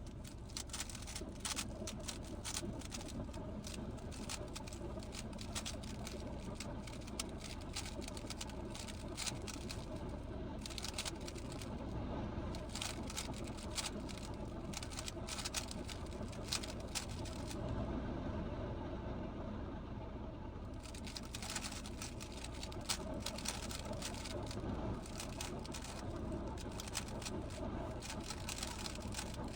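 GAN 15 plastic speedcube turned rapidly by hand: a dense run of quick clicking and clacking from the layers, which thins out for about three seconds partway through and then resumes. A steady low hum sits underneath.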